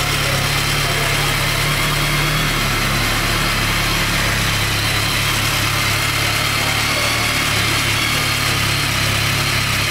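BMW K1300S motorcycle's inline-four engine idling steadily.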